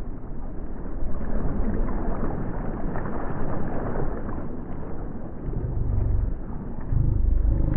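Wind buffeting an outdoor camera microphone, a steady rushing noise broken by heavy low rumbling gusts in the last couple of seconds.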